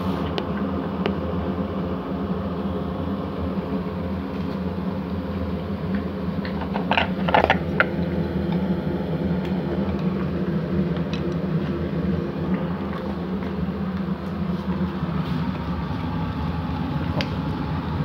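Steady hum of a fan motor running, with a short cluster of sharp clicks and knocks about seven seconds in.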